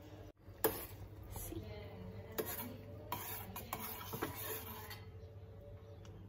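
A metal spoon stirring in a stainless steel pot of boiling bottle gourd, scraping and clinking against the pot several times over a steady low hum.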